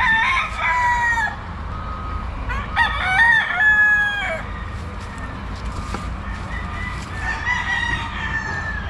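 Gamefowl roosters crowing: one crow at the start, a louder one about three seconds in, and a fainter one near the end, over a steady low rumble.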